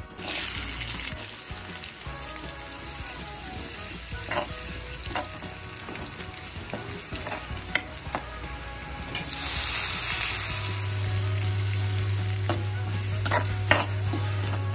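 Garlic, small onions and curry leaves sizzling in hot oil in a pan, the sizzle jumping up loud right at the start, with a metal ladle clinking and scraping against the pan as they are stirred. A steady low hum comes in about two-thirds of the way through.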